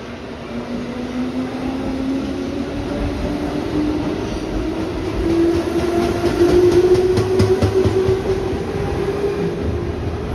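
JR West electric train pulling out and accelerating away: a motor whine climbing steadily in pitch. From about six seconds in, the wheels clatter over the rail joints, loudest as the last cars pass.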